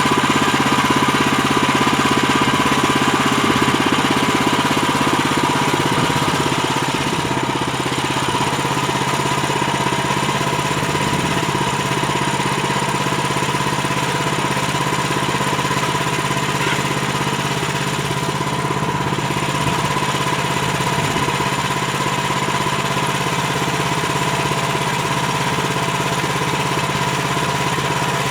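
HM130MAX portable bandsaw mill running steadily on its gas engine, a little louder for the first six seconds or so, then settling to an even level.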